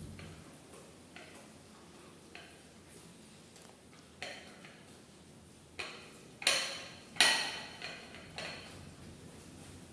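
A plate of kibble clinking and knocking against a tile floor as a puppy eats from it and nudges it along. There are several short ringing clinks, a few faint ones at first and the two loudest close together about two-thirds of the way through.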